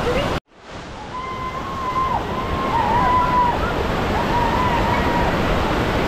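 Steady rushing water noise of a waterfall. The sound cuts out abruptly about half a second in and swells back up over the next second.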